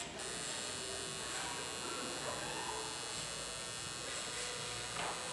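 Electric tattoo machine buzzing steadily while it inks the skin of an elbow.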